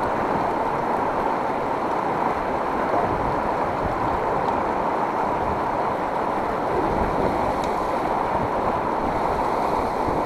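Steady rushing of river water, an even noise with no breaks.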